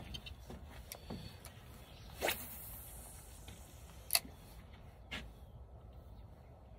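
A cast with a spinning rod: a swish about two seconds in, with line hissing off the spool, then two sharp clicks from the spinning reel about a second apart.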